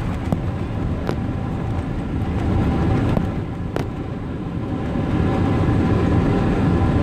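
Cabin noise inside a Boeing 777-300ER around landing: steady rumble of the GE90 jet engines and airflow with faint steady tones and a few light knocks, growing a little louder about five seconds in.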